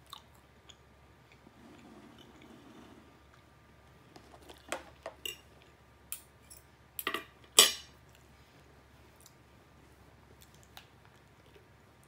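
Fork and knife clinking and scraping against a plate while cutting fried chicken. The sharp clinks come in a run between about four and eight seconds in, the loudest near eight seconds.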